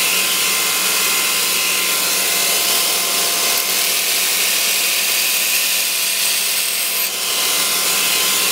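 Belt grinder running with its abrasive belt over a contact wheel, grinding the hollow bevel of a steel knife blade: a steady grinding hiss over the machine's hum.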